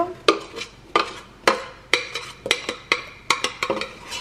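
Metal spoon knocking and scraping inside a stainless-steel saucepan as sticky melted marshmallow is scraped out into a steel mixing bowl: repeated sharp clinks, about two or three a second, each ringing briefly.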